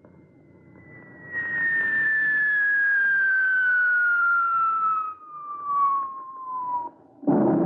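Radio-drama sound effect of a V-1 flying bomb diving after its engine has cut out: a steadily falling whistle over a rushing noise for about six seconds, then a sudden loud blast near the end as it lands and explodes.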